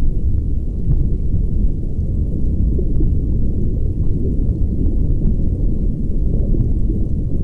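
Muffled underwater sound picked up through a camera's waterproof housing: a steady, dense low rumble of moving water, with a few faint scattered clicks.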